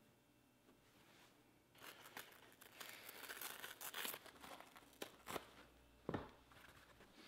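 Pick-and-pluck case foam being torn apart by hand: a dense crackling tear from about two seconds in, lasting a couple of seconds, then a few short tearing snaps and a soft thump near the end.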